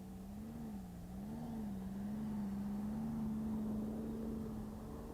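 A steady engine hum, its pitch wavering slightly up and down and growing a little louder in the middle.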